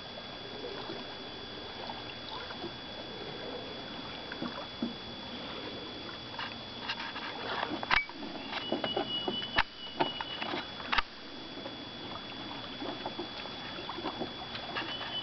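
Oars working a small Phil Bolger Nymph rowing pram: scattered knocks of the oars in their oarlocks and light splashing and dripping from the blades, busiest about halfway through, over a steady faint hiss.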